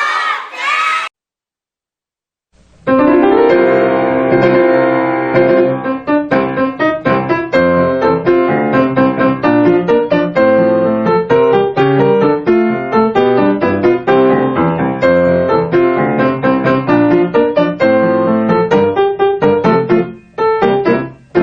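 A child's voice for about a second, then a short silence, then piano music with many quick notes that plays on to the end.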